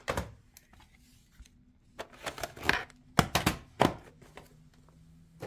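Plastic VHS clamshell case being handled and opened, and the cassette taken out: a scatter of plastic clicks and knocks, thickest between about two and four seconds in.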